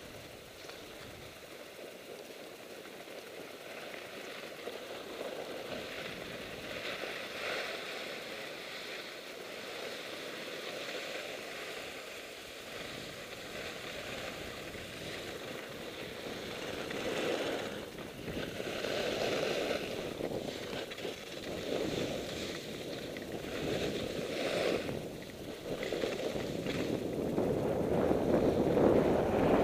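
Skis scraping over packed snow, with wind rushing over the microphone of a head-mounted camera. The sound swells every couple of seconds in the second half and grows louder toward the end as speed builds.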